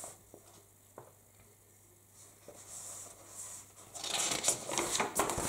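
Paper instruction sheet rustling and crackling as it is handled and unfolded, growing loud in the last second and a half. A single light click about a second in.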